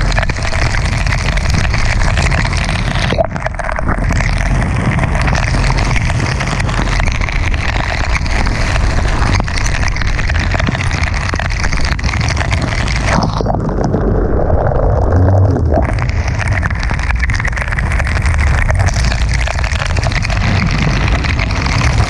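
Loud wind and driving rain on a jet ski's bow camera as the jet ski runs through choppy water, with a steady low rumble under the noise. The sound turns briefly muffled about three seconds in and again for a couple of seconds past the middle.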